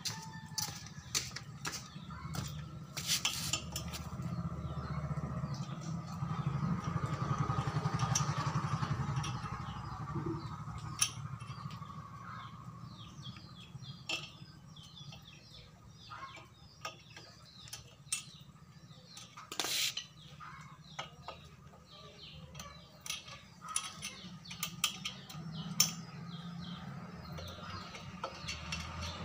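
Scattered metallic clicks and clinks of a screwdriver and pliers working screws on an amplifier's aluminium heatsink bracket. A low background rumble runs underneath and swells for a few seconds about a quarter of the way in.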